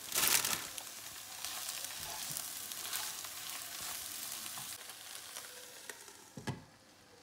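Spinach and chopped red onion sizzling in a hot frying pan, stirred with a silicone spatula; the sizzle surges loudly as the leaves go in at the start. Near the end a glass lid clinks onto the pan and the sizzle dies down.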